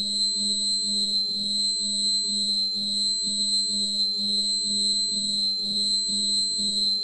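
A loud, steady, piercing high-pitched electronic tone with a low buzz pulsing about two to three times a second beneath it, like a buzzer or alarm.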